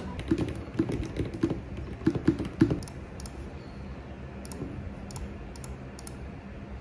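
Typing on a computer keyboard with white keycaps and an aluminium case: a quick run of clacking keystrokes for the first three seconds or so, then a few lighter, sparser clicks.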